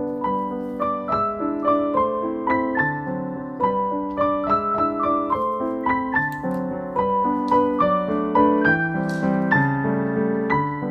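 Background piano music: a steady run of single notes and chords, several per second.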